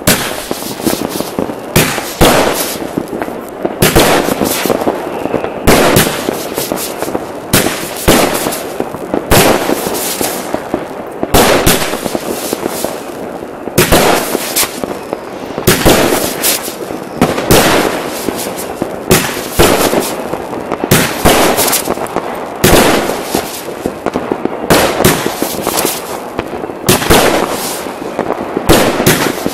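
A 19-shot, 30 mm consumer firework battery firing shot after shot, a sharp bang about every second and a half to two seconds, often as a launch and a burst close together, with a hiss from the rising shells between the bangs.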